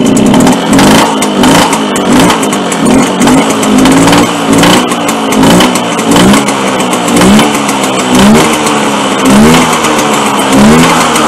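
Motobécane AV89 moped's 50 cc two-stroke engine running loud, revved in short repeated blips about once a second. It has just caught on a cold start with the choke on after months standing unused.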